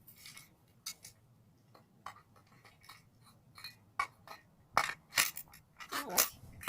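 Scattered clinks and knocks of hard objects being handled, sparse at first and coming thicker in the last couple of seconds.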